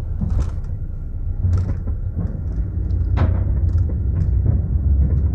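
Car driving, heard from inside the cabin: a steady low road rumble with scattered short knocks and rattles.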